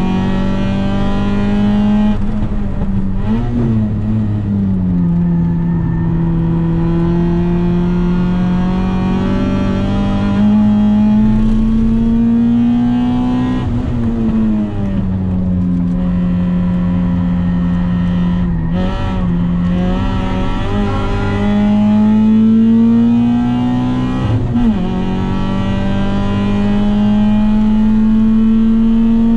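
Car engine heard from inside the cabin while being driven hard on a race track: held at high revs, the pitch climbing slowly under load, with the revs dropping and picking up again about four times, as at braking and gear changes.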